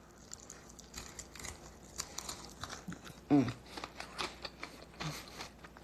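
Quiet chewing and eating of chicken wings: small wet clicks and crunches of mouth and teeth, with a short vocal sound a little past the middle.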